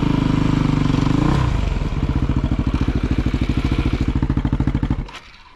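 Dirt bike's engine running, its note dropping as the throttle closes about a second and a half in, then a steady, slow, even putter at low revs that cuts off suddenly near the end.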